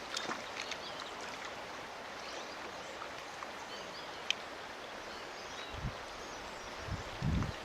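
Steady rush of flowing trout-stream water, with a few faint chirps. A couple of low thumps come near the end.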